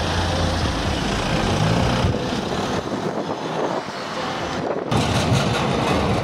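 Engine and road noise of a car driving through city traffic, heard from inside the car. The low rumble fades about three seconds in and comes back abruptly about five seconds in.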